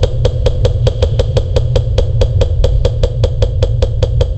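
HPA airsoft gun (G&G ARP9 with a Polar Star Jack engine) firing a sustained full-auto stream at about seven shots a second, over a steady low rumble.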